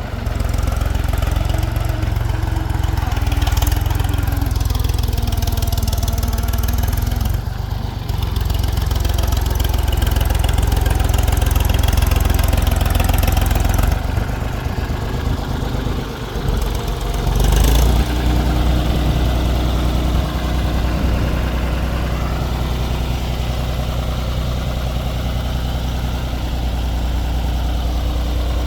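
Diesel engines of earthmoving machinery (a backhoe loader and tractors) running steadily, the sound changing abruptly a few times.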